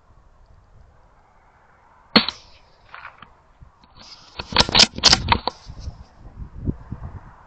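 A CZ455 .22LR rifle fires one CCI 40-grain subsonic round: a single sharp, short crack about two seconds in. A couple of seconds later comes a quick run of sharp metallic clicks, the bolt being worked to eject the case and chamber the next round.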